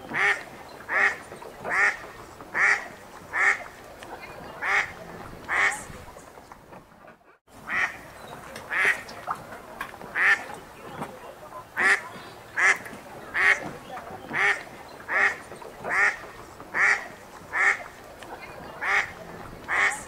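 A duck quacking in a steady run of single loud quacks, a bit more than one a second, with a short break about seven seconds in.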